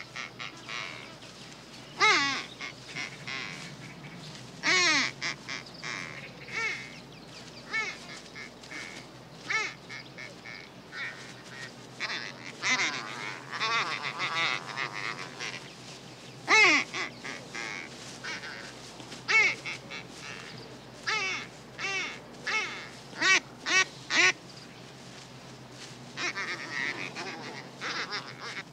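Hand-held duck call blown in short, realistic duck quacks, coming in irregular runs with pauses between; a few quacks ring out much louder than the rest.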